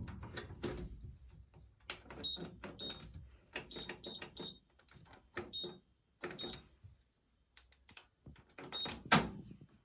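A washing machine's control panel giving about eight short, high beeps as its buttons are pressed, among soft clicks and knocks of handling, with a louder knock about nine seconds in.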